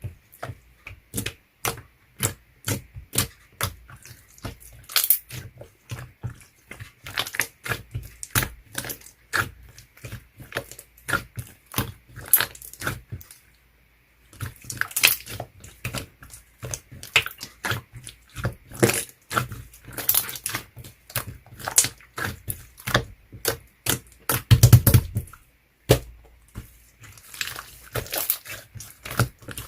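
Clear slime being squeezed and poked by hand, giving rapid, irregular clicks and pops, with a short pause near the middle and a louder squish a few seconds before the end.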